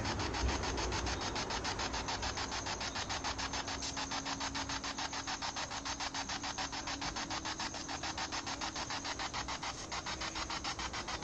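Handheld ITC research device (a spirit box) sweeping through radio stations: a hiss of static chopped into rapid, evenly spaced pulses, several a second.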